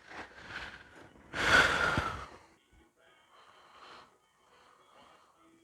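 A loud breath about a second and a half in, lasting under a second, with softer breathy noises before it and only faint sounds after.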